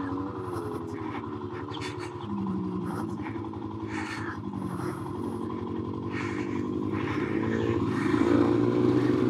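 Royal Enfield Himalayan's 411 cc single-cylinder engine, fitted with a Tec camshaft, running under way on a dirt track. Its note rises and falls with the throttle and climbs about eight seconds in, with scattered light clicks and rattles.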